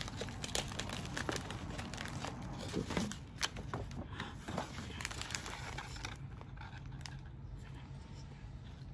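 Paper wrapping being opened and unfolded by hand, with crinkling and rustling, then a clear plastic bag of rice crackers being handled. The crackling is busiest in the first five seconds or so and quietens after about six seconds.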